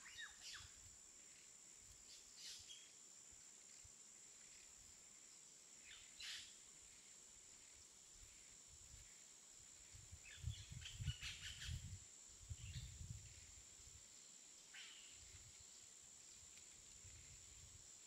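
Near silence: room tone with a steady faint high whine, a few faint short chirps or clicks, and a brief patch of soft knocks and rustling about ten to thirteen seconds in.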